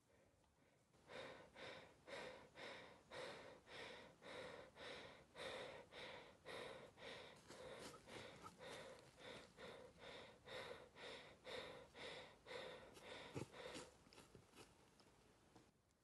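Small curly-coated dog panting steadily, about two to three breaths a second, starting about a second in and dying away near the end, with one sharp tap shortly before it stops.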